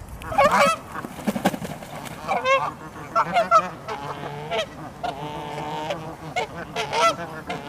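Geese honking: a string of short honks, with a few longer, drawn-out calls near the middle.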